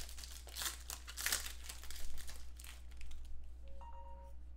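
Crinkling of a trading-card pack's foil wrapper being crumpled by hand, in irregular crackles that thin out after about three seconds as the cards are handled.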